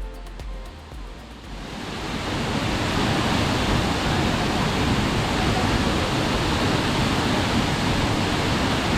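Steady rushing roar of the Salto del Laja waterfall on the Laja River, fading in over the first two seconds or so and then holding even.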